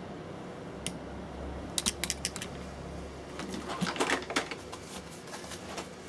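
Small sharp clicks and snips of side cutters working at a circuit board, with the board and tools being handled; the clicks come in a few quick clusters.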